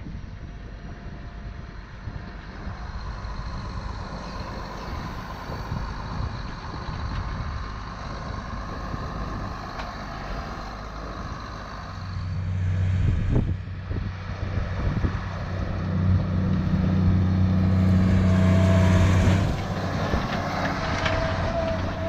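Case IH tractor engine running steadily under load as it pulls a rotary hoe through the field. It grows louder from about halfway through as the tractor comes close, and is loudest a few seconds before the end.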